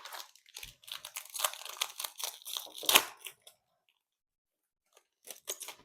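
A foil trading-card pack being torn open, its wrapper crinkling and crackling for about three and a half seconds, then a few short crackles near the end.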